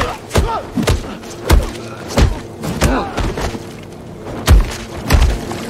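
Film fight sound effects: a rapid series of heavy punches and body blows landing, about eight hard thuds, with short grunts between some of them.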